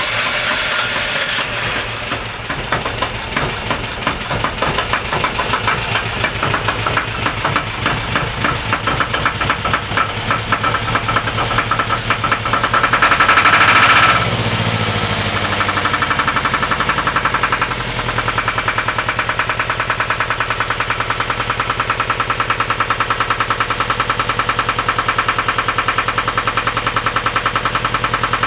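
Volvo Penta MD11C two-cylinder marine diesel running, with a fast, even beat of firing strokes. About halfway through it gets louder for a couple of seconds, then drops back suddenly and runs steadily.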